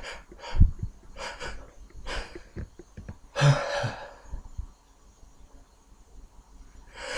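A man with a head cold sniffing and gasping as a sneeze builds, with a sharp low thump about half a second in and a longer gasping breath in the middle. A rising intake of breath starts near the end, just before the sneeze.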